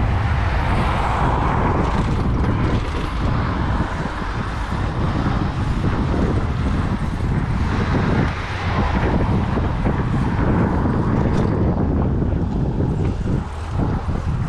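Steady traffic and road noise with a low rumble of wind on the microphone, heard from a bicycle riding through city streets.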